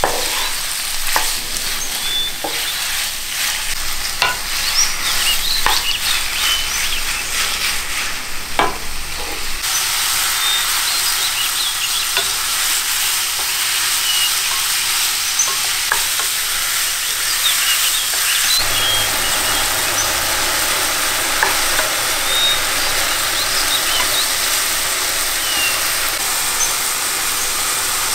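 Diced chicken with onion and carrot sizzling as it fries in oil in a frying pan, with a utensil stirring and knocking against the pan. The clicks of stirring come thickest in the first third; after that the sizzle runs on more evenly.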